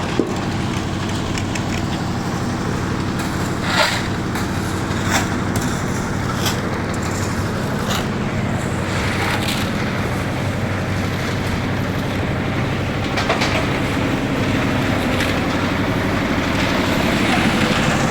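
An engine running steadily, with a few scattered knocks and clanks over it.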